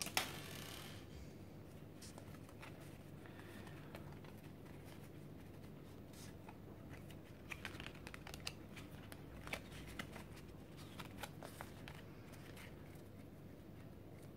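Faint handling of a small stack of Pokémon trading cards: a brief rustle at the start, then scattered light clicks and slides of card against card as they are fanned out and rearranged in the hands.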